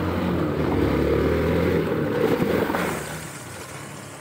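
Hero Xpulse 200 4V's single-cylinder engine running steadily on a wet dirt trail, with a rushing noise over it. The sound drops noticeably about three seconds in.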